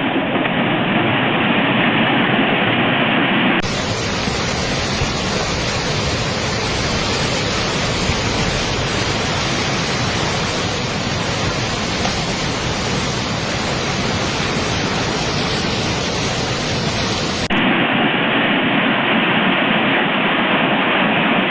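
Steady rush of water, heard as a loud even noise. It cuts abruptly to a brighter, hissier sound about three and a half seconds in, and back to the duller sound about fourteen seconds later.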